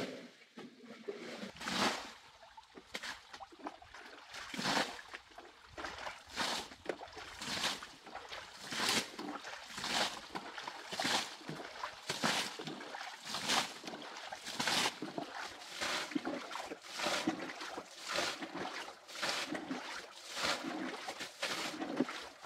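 Muddy pond water being bailed out with a plastic basin: repeated scoop-and-throw splashes, about one a second, as the pond is drained.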